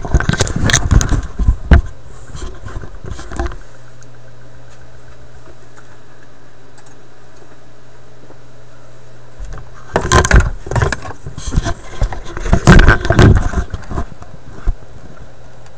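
Handling noise from a video camera being moved around inside a record player cabinet: irregular knocks and rubbing against the microphone in two spells, with a quieter steady low hum in the lull between.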